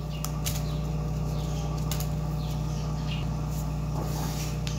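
A steady low hum with a few faint, short clicks and rustles as onion slices are laid by hand into a foil-lined dish.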